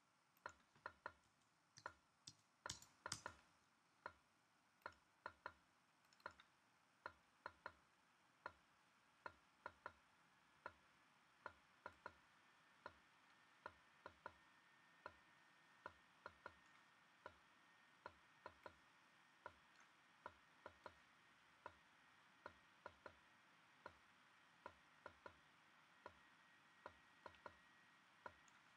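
Faint, sharp clicks at an uneven rate of about one or two a second, with a faint steady high tone coming in about twelve seconds in.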